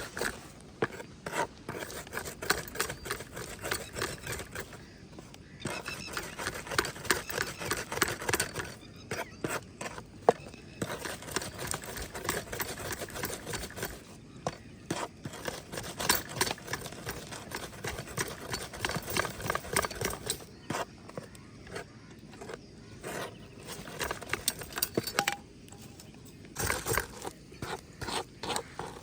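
Garlic, dried chillies and salt being ground by hand into chutney: a fast, uneven run of knocks and scrapes, pausing briefly now and then.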